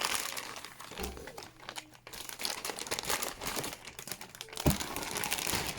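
Plastic packaging crinkling and rustling as a motherboard is unwrapped and lifted out of its box, with a couple of soft knocks of handling near the end.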